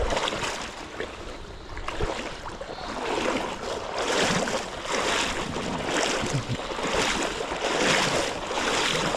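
Rushing, splashing river water that swells and falls about once a second from around three seconds in.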